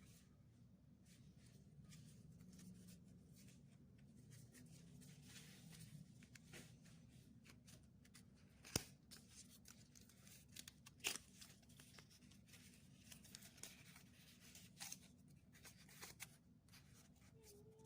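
Faint handling of a product box and its packaging: scattered clicks and taps with light tearing and crinkling over low room tone, with a sharper click about nine seconds in and another about two seconds later.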